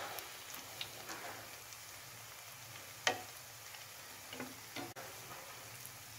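Battered spinach-leaf pakoras deep-frying in hot oil: a faint sizzle with scattered crackles and pops, one louder pop about three seconds in.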